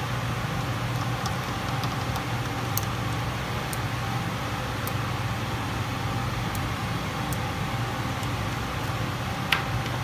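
A steady mechanical hum and hiss runs throughout, with faint light clicks of copper wires being handled and twisted in a plastic electrical box, and one sharper click about nine and a half seconds in.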